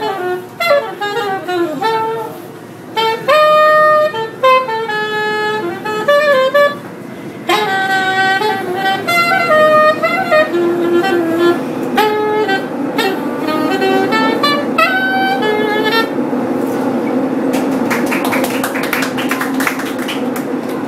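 Soprano saxophone playing jazz phrases of quick runs and held notes, stopping about three-quarters of the way through. Then the running rumble of the subway car, with faint rapid clicking, is left.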